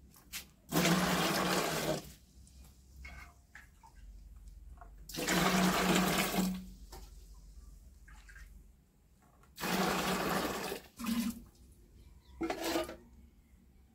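Hot cooling water being scooped with a plastic mug from the top pot of a traditional pot still and poured out: three long splashing pours about four seconds apart, then two shorter splashes near the end. The water has heated up from condensing the spirit and is being emptied so that it can be replaced with cold.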